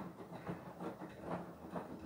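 Beko WTK104121W front-loading washing machine tumbling its drum in the wash phase of a Cottons 60 cycle. Wet laundry and sudsy water slosh and drop in a repeating rhythm of about two or three swishes a second.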